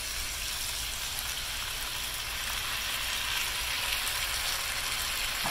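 Food sizzling steadily in a hot pan on the stove as canned diced tomatoes are poured in. The sizzle swells a little about halfway through.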